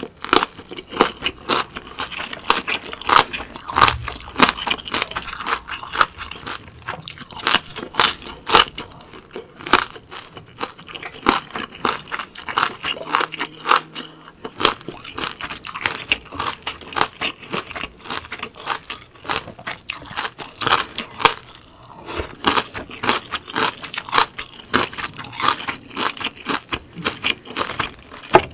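Close-miked chewing of crisp, red-seasoned vegetable kimchi: rapid crunches and wet crackles, several a second, with no pause.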